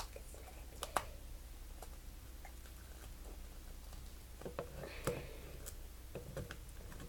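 Small plastic toy parts being handled, with scattered light clicks and taps: one sharper click about a second in and a run of clicks near five seconds, as a piece is pushed at a slot it will not go into.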